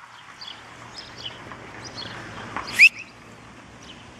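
Small birds chirping now and then over steady outdoor background noise, with one brief, loud, high squeal rising in pitch about two-thirds of the way through.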